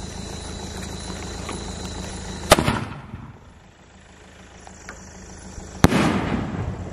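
Sony Fireworks 'Poland' sky shot. A sharp bang about two and a half seconds in as the shell launches from its tube, then a second bang about a second before the end as the shell bursts in the air, echoing briefly.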